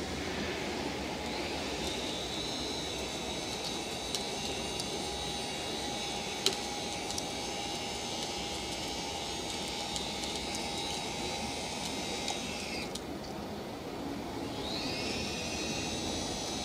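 Electric motors of a remote-controlled caravan mover whining as they drive the caravan: the whine rises as the motors start, holds steady for about ten seconds, winds down and stops, then starts and rises again near the end. A few short clicks, one sharper about six seconds in.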